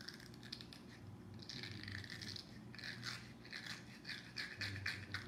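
A small green facial pad being rubbed and squeezed between the hands: soft, irregular scratchy rubbing that gets busier about a second and a half in.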